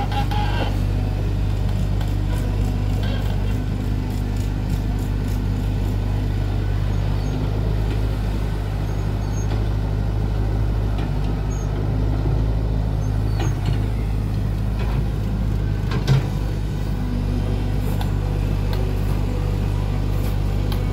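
Diesel engines of a Tata Hitachi EX70 excavator digging and loading soil and of an idling Mahindra tractor, a steady low drone, with a single sharp knock about sixteen seconds in.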